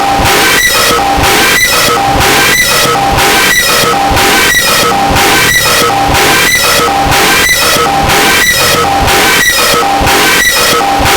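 Loud, dense music with a steady repeating beat, about two beats a second, and held tones over it.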